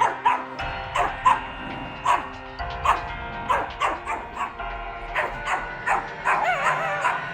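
Shiba Inu barking repeatedly in short, sharp barks, about one or two a second, with a wavering call near the end, over background music.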